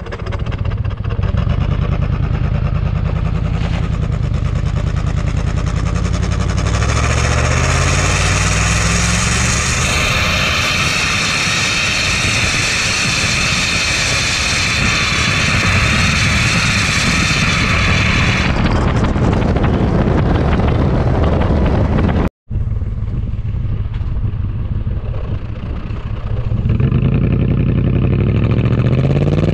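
Supercharged Toyota Tundra V8 running through its valved exhaust while driving, speeding up twice with the engine note rising in pitch. The sound gets much brighter and louder from about 7 to 18 seconds in, then drops off, with a brief cut to silence about 22 seconds in.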